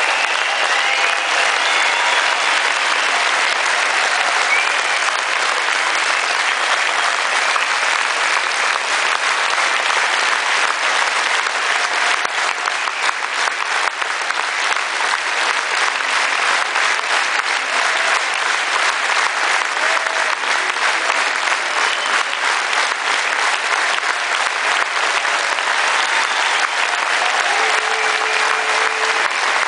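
Large concert audience applauding steadily, a dense, unbroken clapping.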